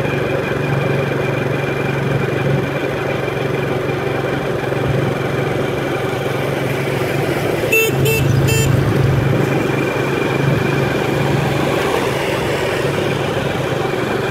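Motorbike running steadily on the move, with road and wind noise. About eight seconds in, a vehicle horn beeps three times in quick succession.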